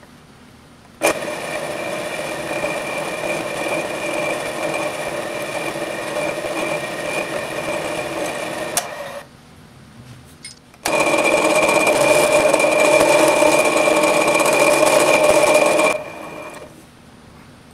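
Drill press running and a twist drill cutting into a metal part held in a vise, a steady machine whine over cutting noise. It runs about eight seconds and stops, then starts again about eleven seconds in with a larger drill, louder, and winds down near the end, the hole being drilled out in steps.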